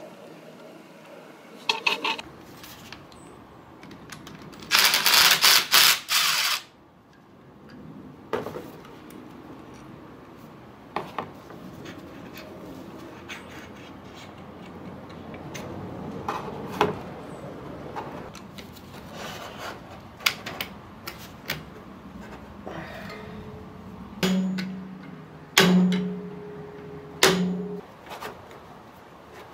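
Metal tools clinking and knocking against a limited-slip differential carrier, with scattered clicks throughout. About five seconds in there is a loud noisy burst lasting about a second and a half, and near the end three short humming bursts.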